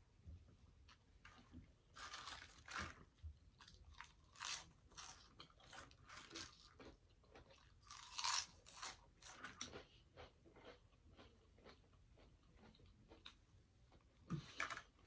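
Close-miked eating: chewing with crisp crunches that come in clusters. The loudest crunching comes about eight seconds in, as potato chips are bitten and chewed.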